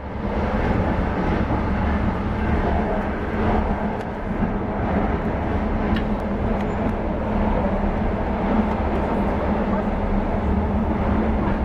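Steady rumble of a passenger train running at speed, heard from inside the carriage, with a few faint clicks.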